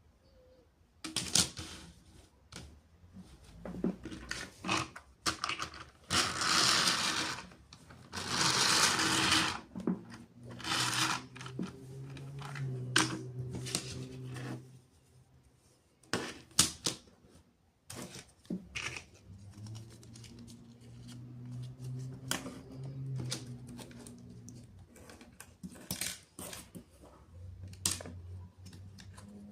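Plastic toy parts and packaging being handled: repeated sharp clicks and snaps, two longer stretches of rustling near the start, and a low hum in two stretches later on.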